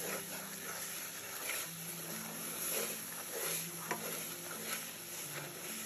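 A milk sauce with carrots being stirred in a non-stick pan, the utensil making repeated soft scraping strokes across the pan bottom over a steady sizzle as the roux thickens.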